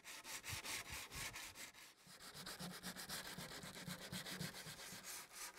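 Abrasive paper rubbed by hand along the live edge of a sycamore plank: faint, quick back-and-forth scratchy strokes, several a second, taking off loose material and keying the wood so resin bonds to it.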